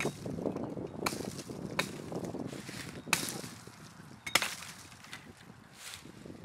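Axe chopping small branches off a wooden ridge pole: about five sharp chops at uneven intervals, the loudest about four seconds in, over a low rumbling background.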